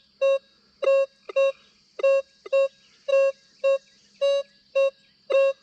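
Minelab Equinox 800 metal detector giving a dozen or so short, same-pitch beeps, two to three a second, as its coil is swept back and forth over a US nickel lying near a fridge magnet at recovery speed 7.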